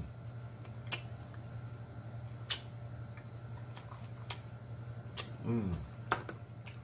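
Close-up eating sounds from chicken wings: wet lip smacks and clicks from sucking sauce off the fingers and chewing, scattered irregularly. About five and a half seconds in there is a short falling 'mmm' of approval. A low steady hum sits underneath.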